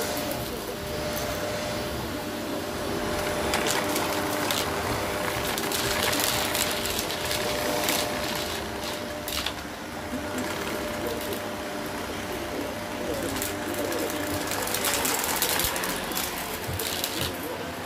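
Shark DuoClean vacuum cleaner running: a steady motor hum with scattered clicks and rattles.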